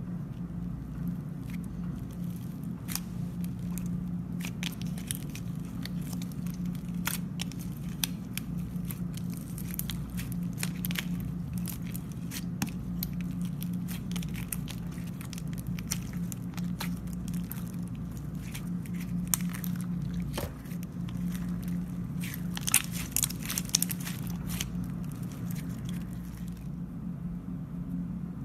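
Clay slime being kneaded and pressed by hand, giving irregular crackling and popping clicks, several in a quick cluster near the end, over a steady low hum.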